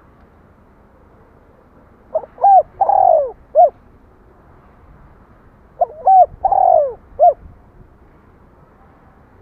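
Spotted dove cooing: two phrases about three and a half seconds apart, each made of two short coos, a longer drawn coo and one short closing coo.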